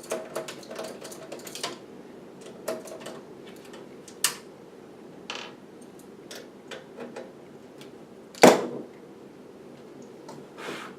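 Scattered clicks and knocks of hands handling parts inside a desktop computer case, with one sharp, loud knock about eight and a half seconds in.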